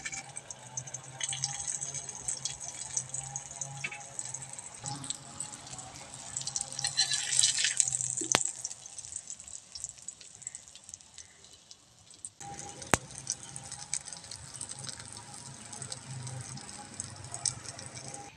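Oil sizzling and crackling in a wok as flour-and-egg-battered tomato slices fry, with a couple of sharp clicks from the metal spatula against the pan.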